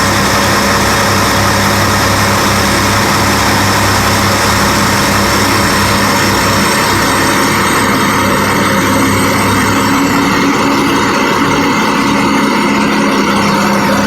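Heavy diesel engines of a mining excavator and haul truck running steadily at a loading face, the engine note shifting about halfway through.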